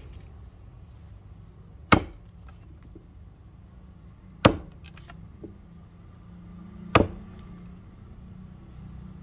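A double-bit True Temper Vulcan axe head chopping into a wooden stump three times, with sharp chops about two and a half seconds apart.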